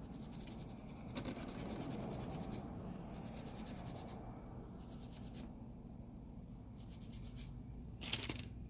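Quick, rapid scratching strokes of a small tool scrubbing dirt off the volume-button part of an LG K20 phone, in about four runs with short pauses between, and a brief click near the end.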